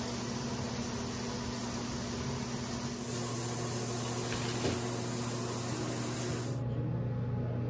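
Water spraying from a handheld shower head onto a tiled shower wall, a steady hiss that cuts off suddenly a little before the end, leaving a low steady hum.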